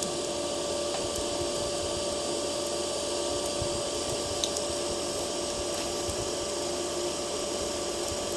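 TIG welding arc burning steadily on carbon steel: an even hiss with a steady hum under it. There is a single faint tick about four and a half seconds in.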